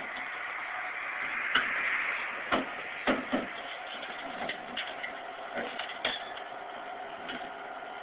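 Backhoe running during unloading from a trailer, with a string of sharp, irregular knocks and clanks over the first six seconds or so.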